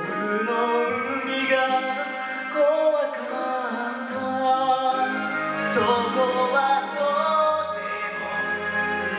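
A musical theatre song: a man singing long, held lines over instrumental backing.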